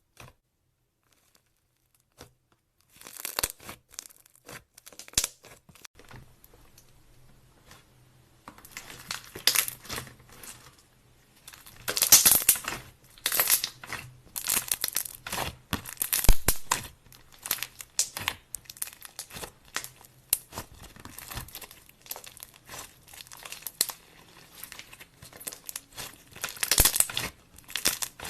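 Clay slime being mixed and squished by hand, a run of sticky crackles, pops and clicks that starts about three seconds in.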